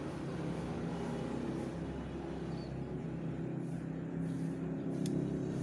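Steady low hum of an engine running, with a faint click near the end.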